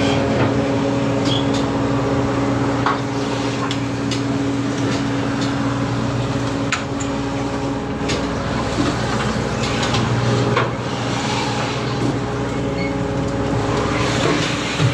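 Ship machinery droning steadily while tuna is unloaded to a cargo vessel, with scattered knocks and clatter from the work on deck.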